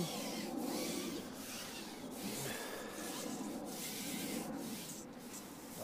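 A fishing pole being pushed out across the angler's knees, rubbing and rasping against his clothing in a run of short strokes, each push broken off by a brief pause.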